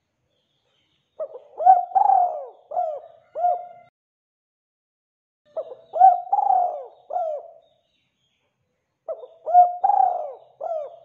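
Spotted dove cooing: three phrases of four or five hooting notes each, a few seconds apart.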